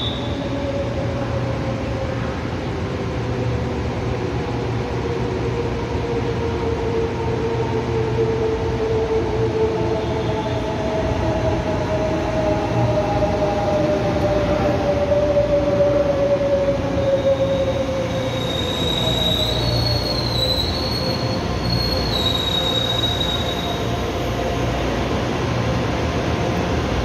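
Taiwan Railway EMU500-series electric commuter train (sets EMU533 and EMU521) pulling into the station and slowing. Its motor whine falls steadily in pitch over a low rumble, and a high-pitched squeal sounds for several seconds past the middle as it brakes.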